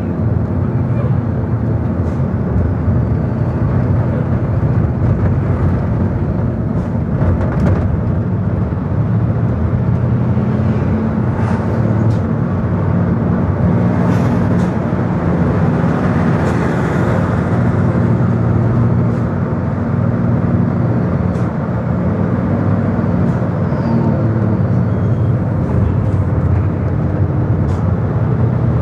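Engine and road noise heard from inside a moving vehicle: a steady low engine hum over the rush of tyres and wind. About halfway through, the noise swells briefly louder as a container truck passes close alongside.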